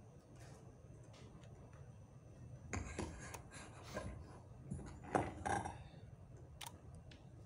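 Faint handling noise at a lectern microphone: a few clusters of knocks and rustles about three and five seconds in, and a couple of light clicks near the end, over a steady low hum.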